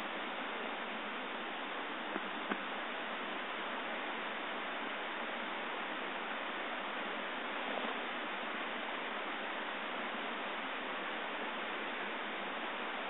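Steady rush of a creek, an even hiss with no change, with two faint ticks about two seconds in.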